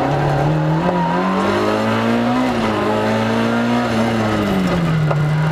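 Rally car engine heard onboard, pulling through the gears: the revs climb steadily over the first two and a half seconds, hold, then fall away from about four seconds in.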